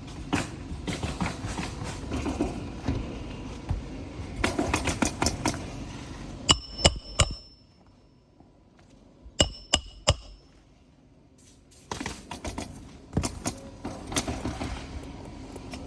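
Hammer striking a roof snake, the steel nailing tool slid under the shingle, to drive roofing nails into a new asphalt shingle. There are two sets of three sharp metallic strikes with a brief ring, about seven and ten seconds in. Between and around them come irregular knocks and scraping as the tool and shingle are handled.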